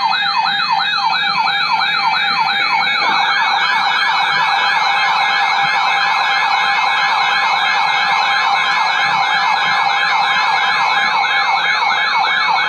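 Electronic siren in a fast yelp, its pitch sweeping up and down about two to three times a second. A second yelp joins about three seconds in, with steady tones underneath.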